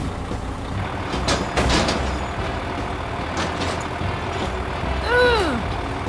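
Truck engine running steadily, with a couple of short hiss-like bursts about a second and a half in and a brief rising-then-falling tone near the end.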